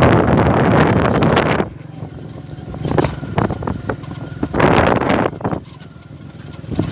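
Wind rushing over the microphone of a moving vehicle, loud for the first second and a half, then dropping away to a steady low engine hum with two more short gusts.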